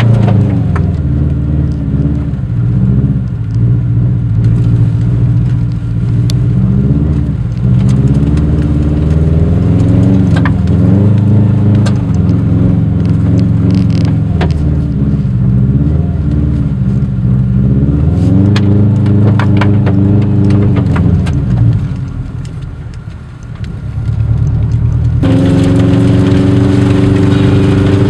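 Subaru WRX's turbocharged flat-four engine heard from inside the cabin, revving up and down over and over while driving through snow, with scattered clicks and knocks. Near the end the engine note falls away, then a steadier, higher engine note starts suddenly.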